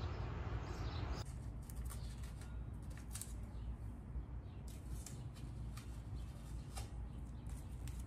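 Faint scattered ticks and rustles of hands handling and pressing short pieces of blue painter's tape onto a painted alloy wheel's rim, over a low steady hum.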